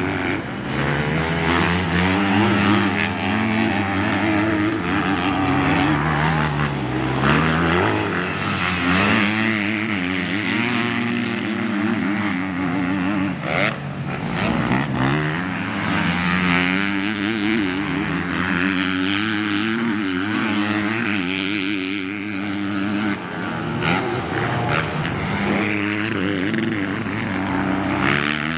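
Motocross race bike engines revving, the pitch rising and falling again and again as the throttle is opened and chopped.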